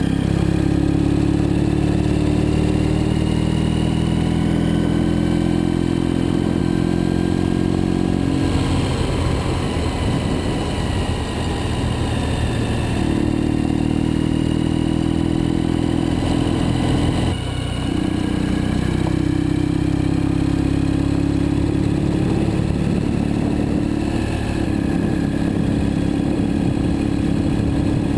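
2012 Ural Gear-Up sidecar motorcycle's air-cooled boxer-twin engine running under way at a steady cruise. The engine note shifts and dips briefly several times, most sharply about seventeen seconds in.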